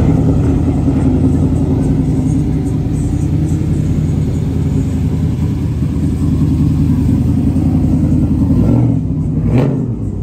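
Lowered pickup trucks driving slowly past, a deep, steady V8-style exhaust rumble at low revs, with a short rev near the end.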